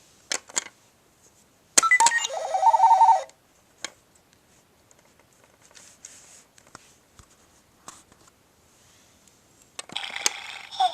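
ELC baby activity robot rattle toy playing short electronic sound effects: a burst of beeping, stepped tones about two seconds in and another near the end, with a few sharp clicks and quiet handling noise in between.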